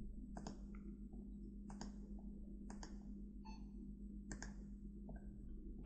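Faint computer mouse clicks, mostly in quick pairs about once a second, as records are selected one by one with Ctrl held down. A steady low hum sits underneath.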